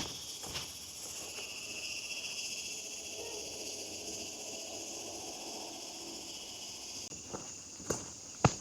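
Steady high-pitched chorus of insects. Footsteps on a path sound at the start and again near the end, about two steps a second.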